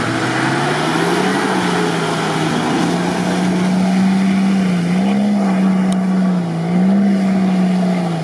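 Off-road SUV engine revving hard as it drives through swamp mud. The revs climb over the first second or so, then stay high, rising and dipping repeatedly as the driver works the throttle.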